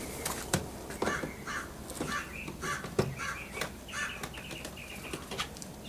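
Crows cawing over and over in a run of short harsh calls, with a few sharp clicks among them.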